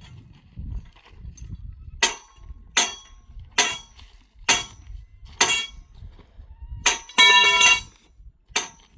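A series of sharp clinking knocks, roughly one a second, with a short pitched ringing sound lasting about half a second near the end.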